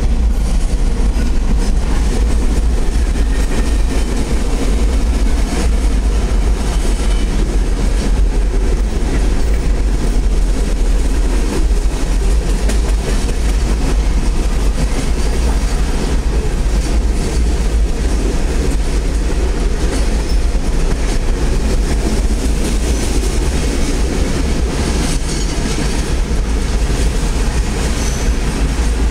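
Freight train of boxcars and tank cars rolling past, a steady, loud rumble of steel wheels on rail with no pause.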